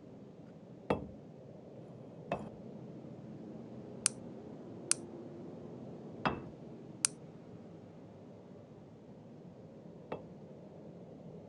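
Seven sharp knocks and clinks at uneven intervals, the loudest about a second in. Some are dull, others have a bright, high ring, over a faint steady low hum.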